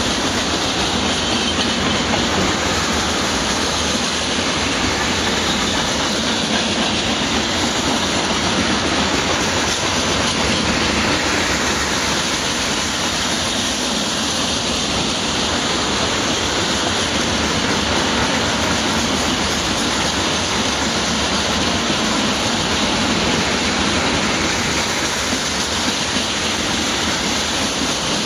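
Loaded freight train of railway tank cars rolling past: a steady, even rumble and rattle of steel wheels on the rails.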